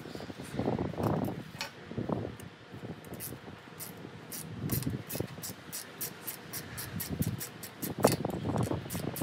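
Hand ratchet wrench clicking quickly as it turns the bolts holding a truck's stainless sun visor, a run of sharp clicks from about three seconds in, over low rustles and knocks of handling.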